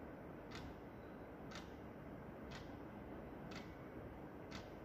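Quartz wall clock's second hand ticking, one light click each second, five ticks in all, over a faint steady room hiss.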